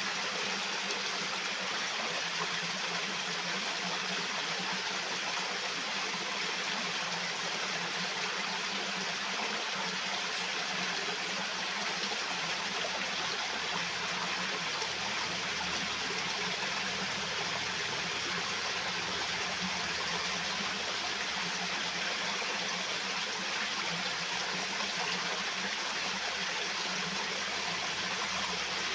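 Flowing water rushing steadily, an even unbroken sound like a stream or channel running.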